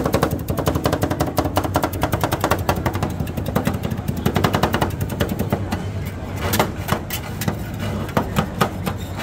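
Two metal spatulas chopping and scraping fast on a stainless-steel ice cream cold plate, working pieces into the freezing ice cream base: a quick run of metallic clicks and taps, many a second, over a steady low hum.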